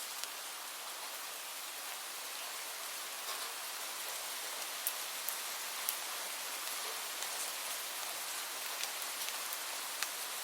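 Steady light rain: an even hiss of rainfall with scattered sharper drop ticks, a few louder ones about five to six seconds in and near the end.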